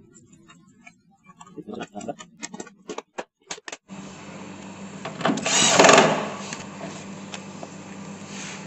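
Water dispenser's cover panels and door being handled and fitted back on: a run of light clicks and knocks, then a steady hum sets in about four seconds in and a loud scraping rush follows a second or so later.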